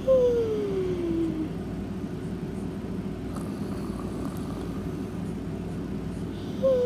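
Snoring in sleep: a whistling breath that slides down in pitch over about a second, once at the start and again near the end, over a steady low background hum.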